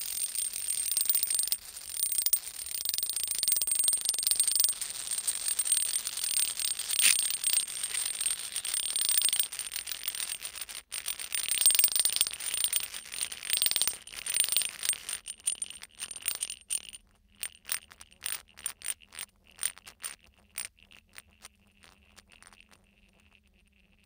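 Coins chattering on a block of dry ice: a steady high whine over a fast rattle, as the dry ice turning to gas beneath the metal makes the coins vibrate and bounce. A little past halfway the rattle breaks up into separate ticks that grow sparser and fainter toward the end.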